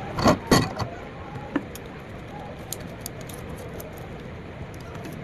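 Two sharp knocks about a quarter second apart, then scattered light clicks and jingles over a steady background hiss.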